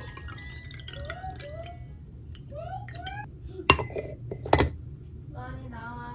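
Drops of liquid falling one after another, each a short rising plip, in two pairs, then two sharp clicks about a second apart.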